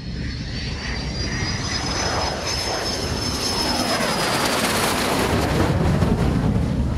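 A jet aircraft flying past: a high turbine whine that falls slightly in pitch, over a rumble that grows louder as it nears, loudest late on.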